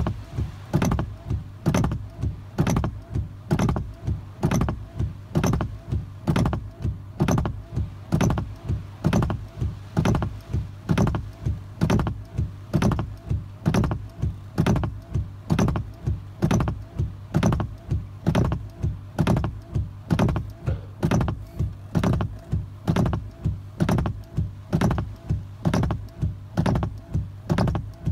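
Car windshield wipers sweeping fast and steadily, heard from inside the car: a sharp knock at each stroke, about one and a half a second, over a low steady hum.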